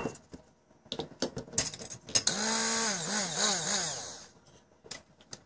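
A few light taps and knocks, then a hand-held stick blender's motor runs for about two seconds, its whine wavering up and down in pitch, as it finishes grinding snacks into powder.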